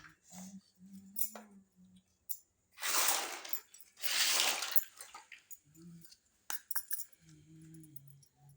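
Water running in two short gushes of about a second each, with a few light clicks and clinks of small toy dishes around them.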